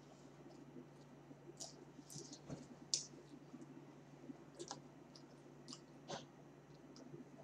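Faint, scattered clicks and smacks of someone eating French fries and picking them off a paper wrapper. There are about half a dozen clicks, and the sharpest comes about three seconds in.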